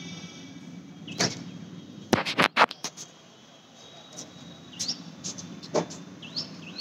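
Birds giving short chirps a few times over a steady low hum. About two seconds in, a quick run of sharp clicks or knocks is the loudest sound.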